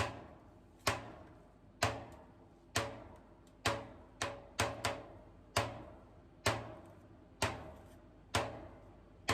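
Sharp percussive strikes in a steady rhythm, about one a second, each with a short ringing decay; a few come closer together around the middle.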